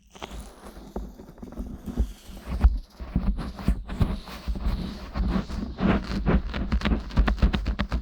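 Fingers rubbing, pressing and tapping on the silicone ears of a 3Dio binaural microphone: a fast, irregular run of muffled thumps and scratchy rubbing, getting busier and denser a few seconds in.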